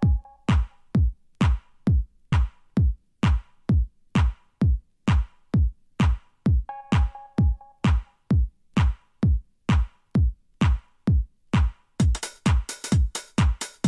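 Electronic dance music track: a steady drum-machine kick at about two beats a second, with a short synth chord stab twice. Higher hi-hat-like percussion joins about twelve seconds in.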